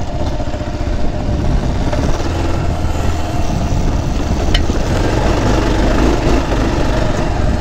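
Adventure motorcycle's engine running steadily at low speed on a dirt track, picked up close by the rider's own microphone.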